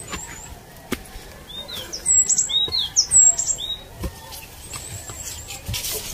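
Forest birds chirping: a handful of short, sharp whistled notes that sweep downward, then a fast high trill of repeated notes near the end. A few faint knocks sound underneath.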